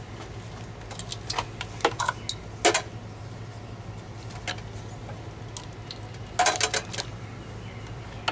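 Metal clicks and rattles as battery-charger alligator clamps and leads are unhooked from the rebar anode of an electrolysis rust-removal bucket. One cluster comes about a second in and another at about six and a half seconds, over a low steady hum.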